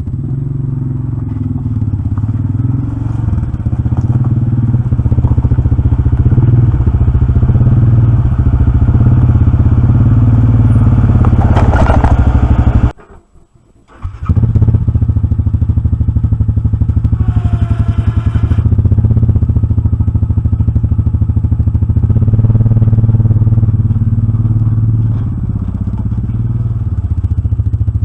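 2012 Yamaha Grizzly 700 ATV's single-cylinder engine running loudly close by, its note rising and falling with the throttle. It drops out almost to silence for about a second halfway through.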